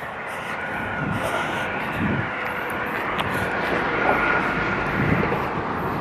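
Freeway traffic: a steady rumble and hiss of passing vehicles that slowly grows louder, with a faint steady whine.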